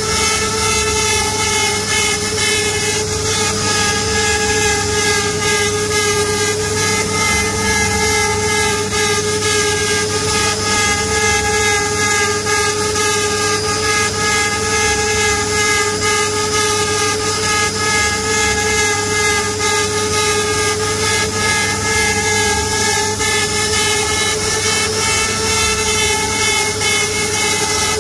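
CNC router spindle running at a steady high-pitched whine while its tapered carving bit cuts a relief pattern into wood, with a constant hiss of cutting over it.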